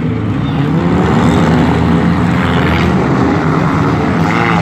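Engines of several front-wheel-drive demolition derby cars running and revving together as a steady, loud drone whose pitch wanders up and down. One engine revs up and back down near the end.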